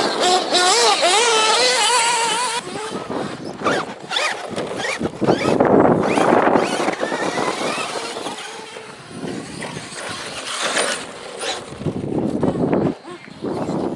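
Nitro-powered RC cars' small glow-fuel engines buzzing at a high pitch, the whine wavering and rising and falling as the throttle is worked through the turns and jumps.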